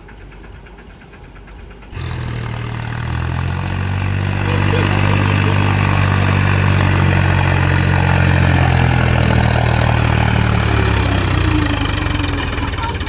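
Heavy-machinery diesel engine, faint at first, then coming in loud and abruptly about two seconds in, building further a couple of seconds later and running steadily before easing off near the end.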